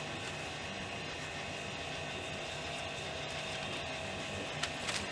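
Hotteok frying in a shallow layer of oil on a flat griddle: a steady sizzle, with a couple of short clicks near the end.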